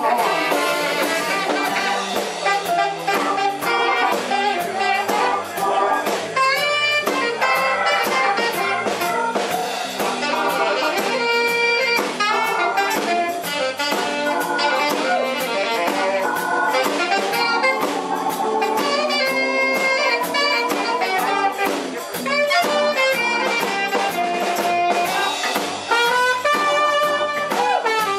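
Live blues band playing an instrumental passage, a wind instrument carrying the lead line over electric bass guitar and drums.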